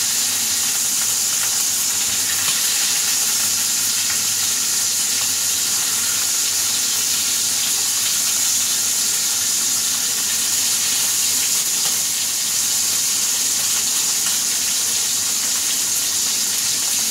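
Burger patties sizzling steadily in a frying pan.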